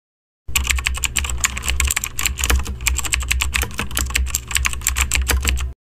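Keyboard typing sound effect: a rapid, uneven run of key clicks over a low steady hum, starting about half a second in and cutting off abruptly shortly before the end, accompanying on-screen text being typed out.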